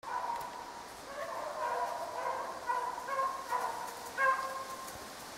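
A pack of beagles baying on a snowshoe hare's track, several long drawn-out howls overlapping one another: the hounds are running the hare.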